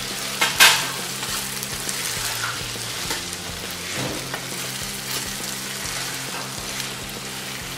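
Diced vegetables and paneer sizzling in a frying pan while a wooden spatula stirs and scrapes through them, with one loud knock of the spatula against the pan about half a second in.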